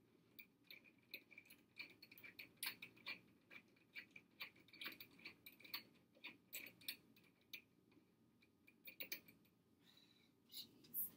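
Faint, irregular small metallic clicks and ticks from a wall-mounted curtain-rod bracket being handled and worked loose by hand, about two or three a second, with a couple of louder clicks near the end.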